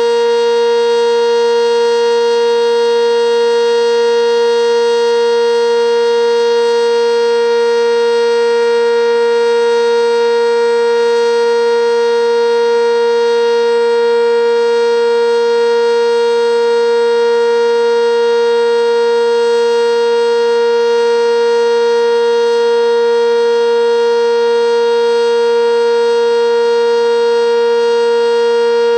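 Sentry 10V electromechanical warning siren sounding its alert signal: one loud, steady tone held at a constant pitch, with no rise or fall.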